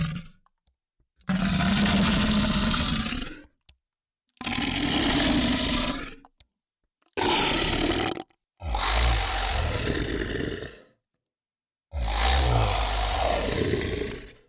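Monster growl sound effects: five separate rough growling roars, each one to two seconds long, with a clean silence between them.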